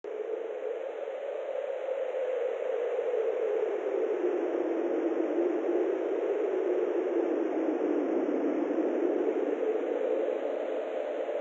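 Steady rushing noise with no tones in it, heaviest in the low-middle range, cutting in suddenly and then slowly swelling and easing.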